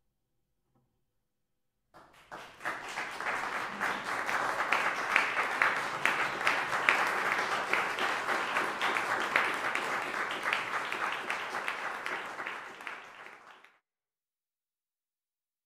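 Audience applauding, with individual claps heard in the mass. It starts about two seconds in, then fades and cuts off suddenly near the end.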